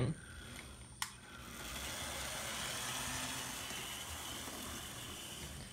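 Model train locomotive running in reverse along the track, a steady whirring of motor and wheels that builds up after a single sharp click about a second in.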